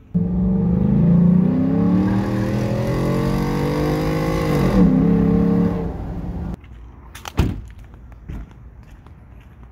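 2013 Ford F-150's engine revving hard under full-throttle acceleration, heard from inside the cab, its pitch climbing steadily and then dropping sharply with an upshift about five seconds in. The engine sound cuts off suddenly at about six and a half seconds and is followed by a couple of sharp knocks.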